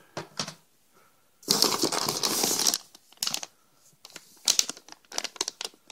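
Packaging being handled: one long crinkling rustle about a second and a half in, then short crackles and clicks as the contents are sorted through.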